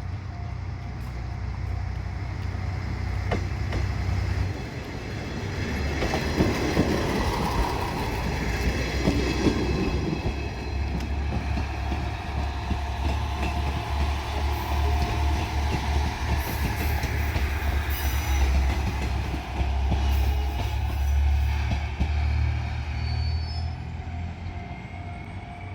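A JR Shikoku diesel railcar runs over a level crossing. Its diesel engine rumbles low and steady while the wheels run over the rails, loudest about six to ten seconds in. A level-crossing bell rings with a steady repeating tone underneath.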